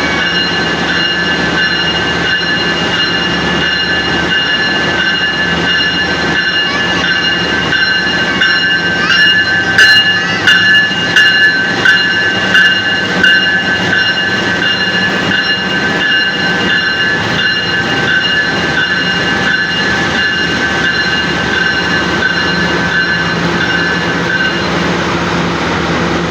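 Indonesian CC 206 diesel-electric locomotive running steadily, its engine note carrying a set of steady high-pitched whines. Partway through comes a run of about half a dozen sharp knocks in quick succession.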